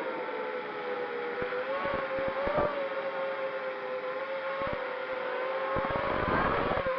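Wizard X220S racing quadcopter's motors and propellers whining steadily in flight, the pitch wavering as the throttle changes. About six seconds in the pitch rises briefly with a burst of rushing air noise, and scattered clicks crackle throughout.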